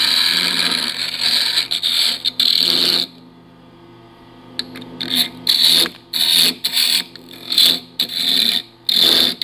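Carbide scraper cutting a spinning ash blank on a wood lathe: a steady cutting noise for about three seconds, then a short pause and a series of brief, separate cuts as the tool is touched to the wood again and again.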